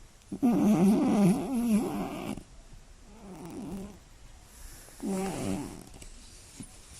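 Scottish Fold cat snoring in repeated breaths. Just after the start comes a loud, wavering, rasping snore about two seconds long, then a fainter snore, and a short one about five seconds in.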